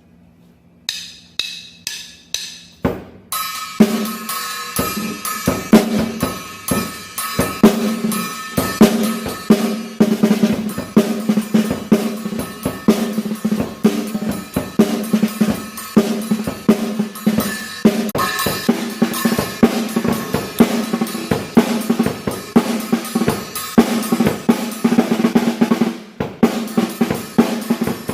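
Drum kit played with a Davis 14x5.5 snare drum: about six single snare strikes, then a full groove of snare backbeats, bass drum and cymbals with the snare's ringing tone carrying through. The groove breaks off briefly near the end and starts again.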